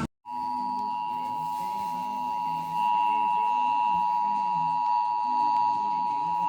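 Emergency Alert System attention signal: a steady two-tone alert starting about a quarter second in and held unbroken. It signals that the spoken message for a Required Monthly Test is about to follow.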